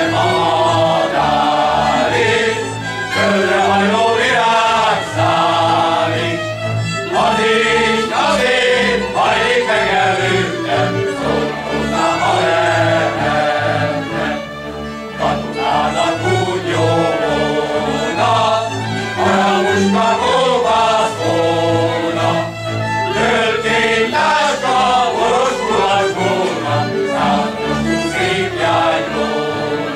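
Men's choir singing a Hungarian folk song, accompanied by a folk string band of violins and double bass.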